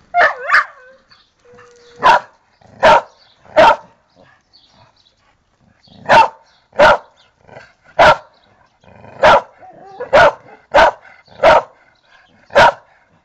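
An American Pit Bull Terrier barking: about a dozen loud single barks, roughly a second apart, with a pause of about two seconds a third of the way through.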